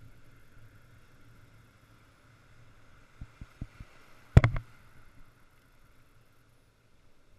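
Surf washing in the background as a low, muffled rumble. A little past three seconds come four light quick taps, and just after them a sharp knock, the loudest sound.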